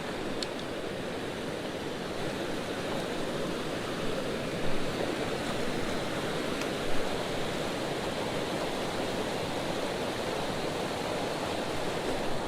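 Small mountain creek rushing steadily over rocks, an even water hiss, with a couple of faint knocks about five and seven seconds in.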